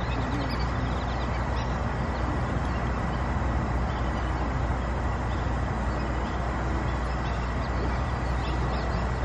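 Steady low rumble and hiss of outdoor background noise, with ducks quacking faintly now and then.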